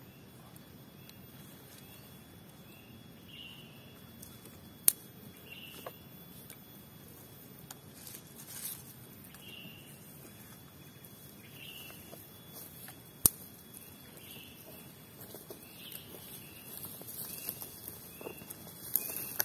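Quiet forest ambience: a bird gives short chirps every second or two over a faint steady insect drone. Two sharp snaps stand out, and rustling and light knocks pick up near the end.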